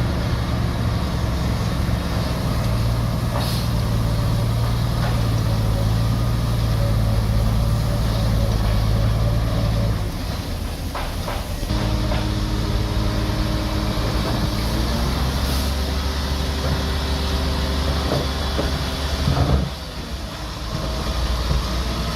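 Heavy diesel engine of earthmoving machinery running hard. Its note drops about ten seconds in and settles on a new pitch a couple of seconds later. A brief loud burst comes near the end, after which the engine runs quieter.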